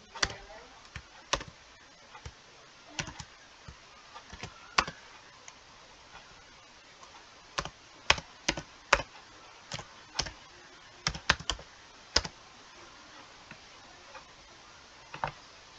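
Typing on a computer keyboard: irregular keystroke clicks in short runs, with pauses of a second or two between them.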